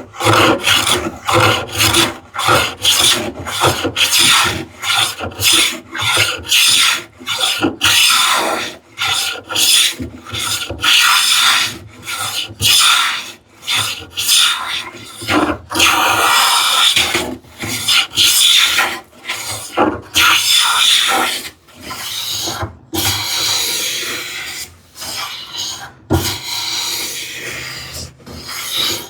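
Hand plane being pushed in quick repeated strokes across an ash board, taking heavy shavings to remove the bulk of the stock, a rough first pass before edge jointing. The strokes come about two a second, some running longer past the middle.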